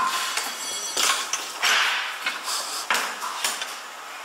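Hammer striking the metal parts of a single-punch tablet press during disassembly. A sharp strike at the start rings briefly, then a few irregular metal knocks and clanks follow.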